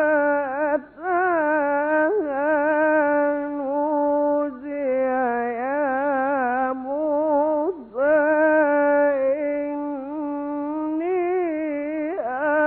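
Male Quran reciter chanting in a long, ornamented melodic line of tajweed recitation. It is a single voice with wavering held notes, and it pauses briefly for breath about a second in and again near eight seconds.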